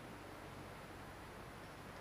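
Steady rush of the Nantahala River's flowing water, faint and unchanging.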